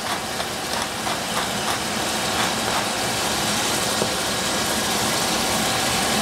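Vegetables frying in a pan on the stove: a steady sizzling hiss with a low rumble under it, slowly growing louder.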